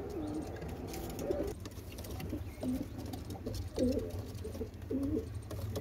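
Homing pigeons cooing: a series of short, low, warbling coos, about one a second.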